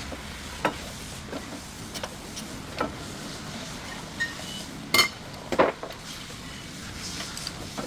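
Irregular metallic clinks and knocks of hand tools and parts during work on a car's stabilizer link. The two loudest knocks come about five seconds in, half a second apart.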